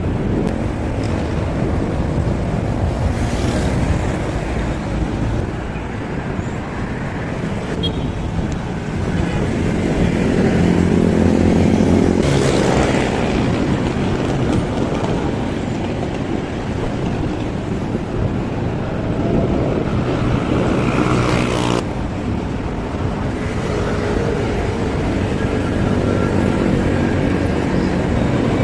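Road traffic: motor vehicle engines running and passing close by, with louder passes about 3, 12 and 22 seconds in.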